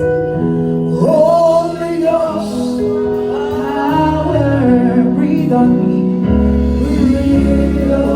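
Slow gospel worship music: a singer holding drawn-out, wordless notes over sustained keyboard chords and a deep bass line.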